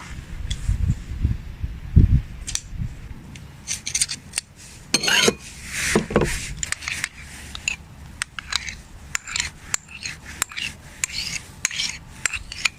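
Cooking tools handled during food preparation: a run of sharp clicks and taps, a few dull thumps near the start, and longer scraping strokes about five to six seconds in.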